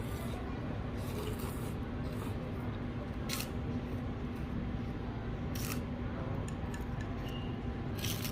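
Steady hum and background din of an indoor eating place, with about four short, sharp scraping sounds, as from utensils or packaging at the table.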